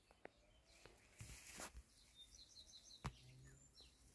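Faint outdoor ambience with birds chirping: a quick run of about five short, high chirps about halfway through. There is also a brief rustle a little over a second in and a single sharp click about three seconds in.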